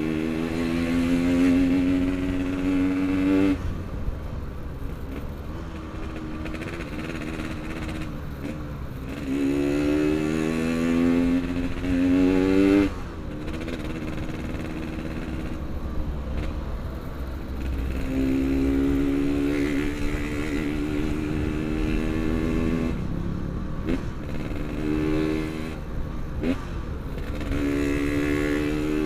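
Yamaha RX-King's single-cylinder two-stroke engine pulling under throttle while riding. Its pitch rises steadily in several runs and drops off sharply between them as the throttle is closed or a gear is changed.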